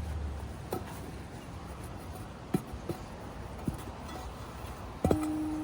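A few scattered light clicks and knocks, then a sharper knock near the end followed by a steady pitched ring that slowly fades.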